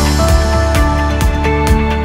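Upbeat corporate-style background music track with sustained notes over a steady beat of about two beats a second.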